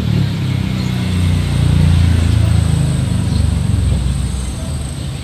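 An engine running with a low, pulsing rumble that swells about two seconds in and eases off near the end.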